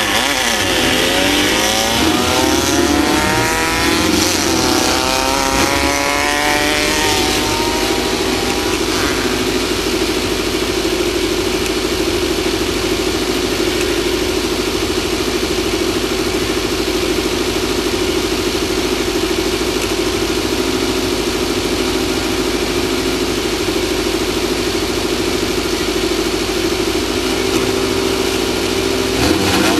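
Off-road race vehicle's engine under way: its pitch rises and falls with the revs for the first several seconds, then holds steady.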